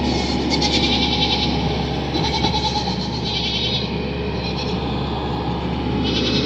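Goats bleating several times, each call wavering and lasting under a second, over a steady low rumble.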